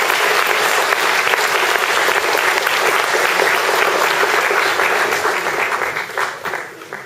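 Audience applauding, loud and steady, thinning out over the last second or two to a few last claps.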